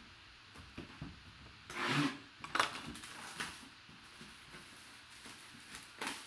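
A cardboard box in clear plastic wrap being picked up and handled: plastic rustling and cardboard knocks in several short bursts, the loudest about two seconds in.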